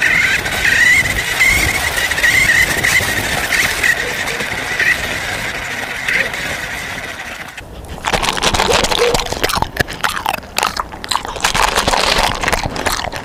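A radio-controlled toy car's electric motor whining as it drives over rough tarmac, then, about eight seconds in, a dog crunching dry kibble from a bowl in quick, irregular bites.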